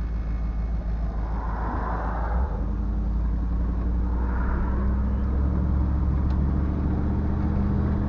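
Car engine and road noise heard from inside the cabin as the car pulls onto the road and gets under way: a steady low engine hum whose pitch rises a little about five seconds in.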